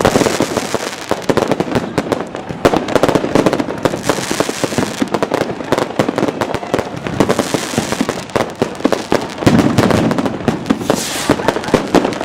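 Fireworks and firecrackers going off without pause, a dense, loud barrage of overlapping cracks, bangs and crackles.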